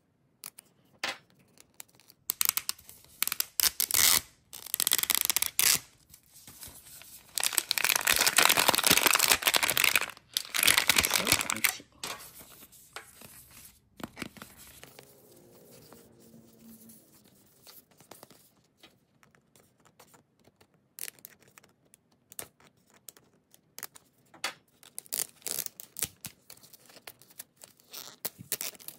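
A plastic wrapper being cut and torn off a Miniverse toy capsule ball, making loud crinkling and tearing in two long stretches in the first half. Then quieter scattered crackles and clicks come as the seal around the capsule's seam is picked at and peeled.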